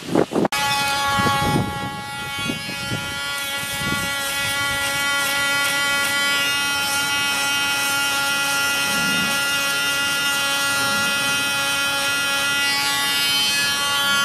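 Handheld electric dog-nail grinder running at a steady, unchanging whine as it files a bull terrier's nails. The whine comes in about half a second in.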